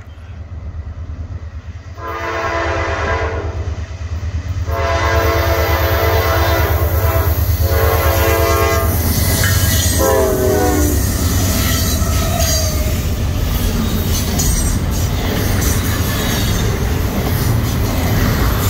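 Norfolk Southern diesel freight locomotives sound their horn in two long blasts and then a shorter one, the crossing warning. The pitch drops on the last blast as the lead unit passes. The deep diesel rumble and the rolling clatter of double-stack container cars follow.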